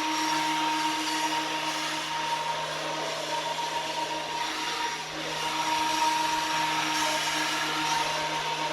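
Ryobi 10-inch benchtop planer running with freshly fitted blades: a steady motor whine over a broad rushing noise, with some of the whine's tones fading for a few seconds mid-way.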